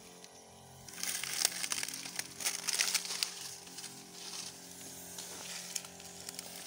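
Dry leaves and stalks crackling and rustling in uneven bursts, starting about a second in.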